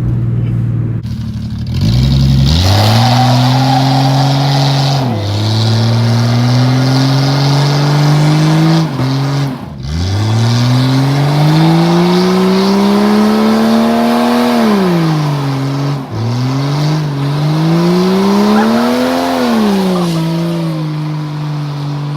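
Car engine accelerating through the gears: the revs climb and drop back at two gear changes, climb again, ease off, rise once more, then settle to a steady cruise.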